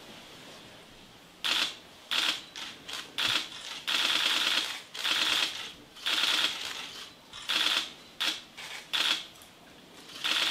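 Camera shutters firing in rapid bursts: about a dozen runs of fast clicking, some brief and some lasting about a second, starting a second and a half in.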